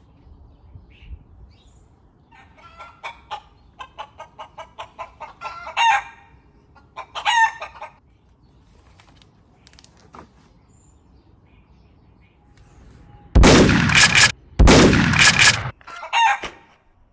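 A man imitating a chicken: a run of quick clucks speeding up into squawks, then a couple of very loud, long crowing cries near the end.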